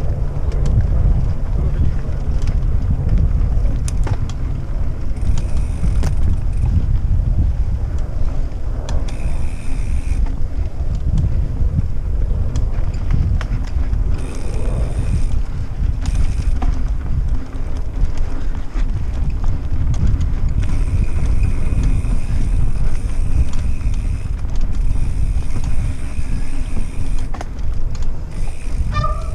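Mountain bike rolling fast over a dirt singletrack, with heavy wind buffeting on the action camera's microphone, tyre noise and scattered knocks and rattles from the bike over bumps. A thin high whir comes and goes several times.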